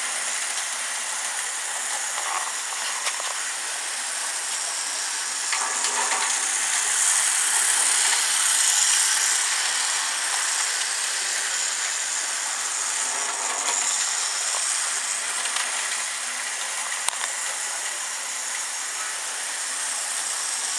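Tyco HO-scale Burlington Northern diesel model train running on its track: a steady, hissy whir from the locomotive's electric motor and the wheels on the rails, with a few faint clicks.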